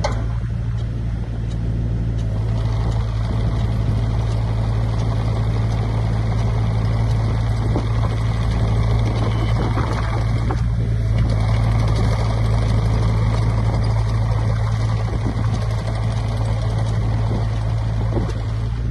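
2013 Volvo EC27C mini excavator's diesel engine running steadily, with a strong, even low hum.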